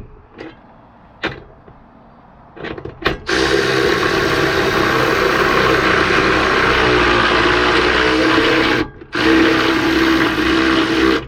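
Cordless power tool driving a 1/4-inch lag bolt into the van's wood floor: a few light clicks as the bolt is set, then the tool runs steadily for about five seconds, stops briefly, and runs again for about two seconds.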